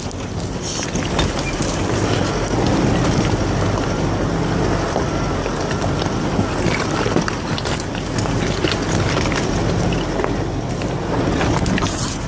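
A 4WD's engine running as it drives a rough dirt track, with scattered knocks and rattles and wind buffeting the microphone.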